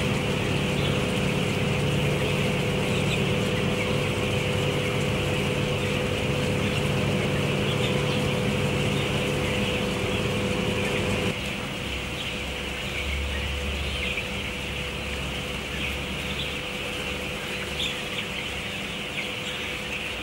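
Dense, steady peeping of a large flock of young broiler chicks, over a constant low mechanical hum from the poultry house's ventilation fans. About eleven seconds in, the hum drops in level and changes character while the peeping goes on.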